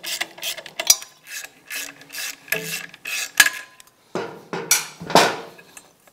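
Hand socket ratchet clicking in short back-and-forth strokes, about three a second, as it backs out a bracket bolt; near the end come three longer, louder strokes.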